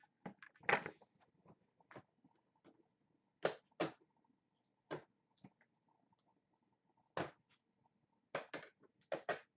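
Trading cards being handled: a dozen or so short scrapes and snaps, spaced irregularly, with a few louder ones in quick pairs.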